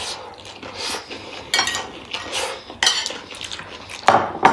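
Metal spoons clinking and scraping against plates as food is scooped up, in a string of short, uneven strokes, the loudest about four seconds in.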